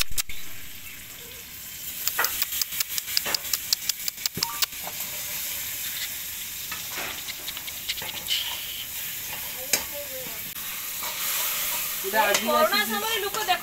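Chicken curry sizzling in a steel kadai while a steel spatula stirs it, scraping and clicking against the pan in quick strokes, most densely in the first half.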